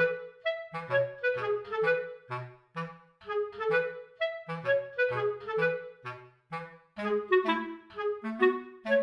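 Background music: a bouncy melody of short notes over a bass line.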